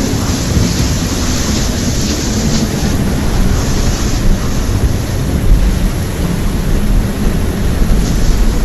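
Steady rushing noise of a flash-flood storm: wind buffeting the microphone over the rush of water.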